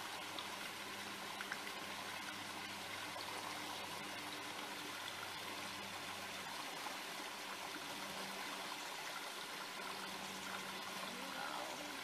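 Small creek water pouring over a fallen log into a pool, a steady rush of running water.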